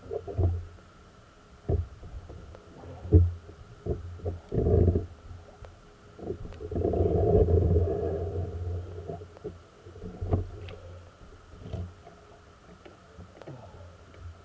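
Muffled thumps and knocks, with a longer dull rumbling rush about seven seconds in, over a faint steady hum: handling noise from a camera that is covered or in motion.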